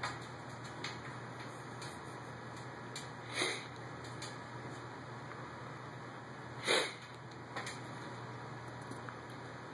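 Cats' paws lightly tapping and batting at a glass tabletop, a few faint taps over a steady room hum. Two short breathy puffs, about a third and two-thirds of the way through, are the loudest sounds.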